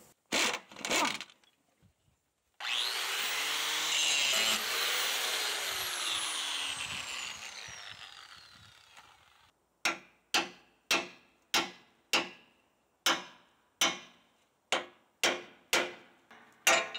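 A couple of clanks, then a handheld power tool that spins up and runs for a few seconds before winding down, its pitch falling. It is followed by about a dozen sharp, ringing hammer blows on metal, roughly two a second, knocking a riveted leaf-spring hanger off the truck frame.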